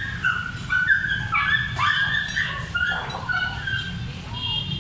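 Short, high-pitched whining calls from an animal, repeated about two to three times a second and bending up and down in pitch, over a low steady rumble.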